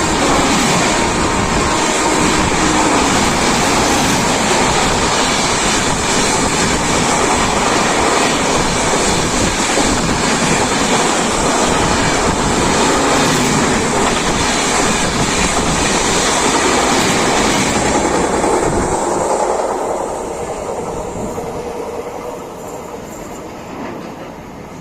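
Indian Railways superfast express train passing at speed close by: a loud rush of coaches with wheels clattering over rail joints, and the tail of its horn falling in pitch at the very start. The noise holds steady for about twenty seconds, then fades as the last coaches go by.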